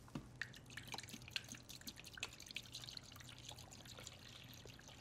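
Water-based rust remover soak being poured from a plastic gallon jug into a clear tray: a faint trickling pour with scattered drips and splashes, the stream filling out about two seconds in.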